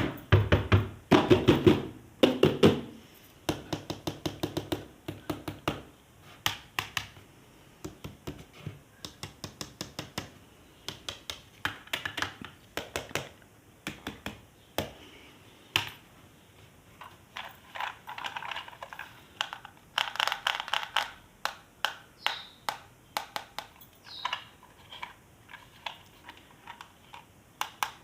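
Plastic toys and their packaging being handled and unboxed: a long string of taps, clicks and light knocks, in places quick runs of small clicks, with a few louder, noisier stretches of handling.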